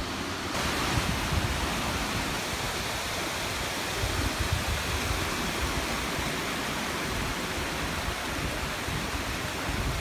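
Waterfall pouring, a steady rushing hiss of falling water, with wind rumbling on the microphone underneath.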